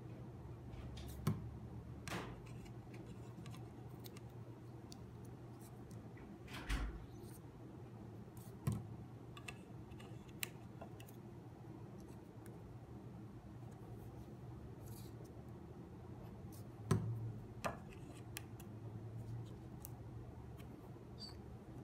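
Scattered light taps, clicks and rustles of paper, a glue bottle and a plastic tray being handled on a tabletop, over a faint steady hum.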